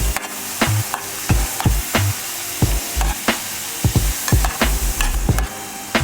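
Food sizzling in a hot frying pan while it is stirred, with sharp clicks of the utensil against the pan, over background music with a steady beat.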